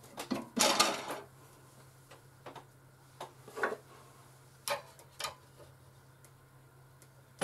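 Small metallic clicks and rattles from handling a scroll saw's tension adjuster and top pinless blade clamp as the blade tension is slackened and the clamp undone. There is a quick cluster of clicks in the first second, then scattered single taps, over a faint steady low hum.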